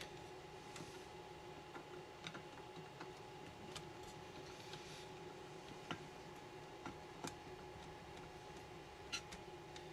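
Sparse, irregular small clicks and taps as a screwdriver is worked in among the metal parts inside an open stereo receiver, over a faint steady hum.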